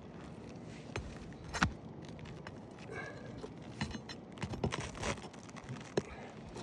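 Scattered clicks, taps and scuffs of someone moving about on old asphalt shingles and handling them, with a sharp knock about a second and a half in.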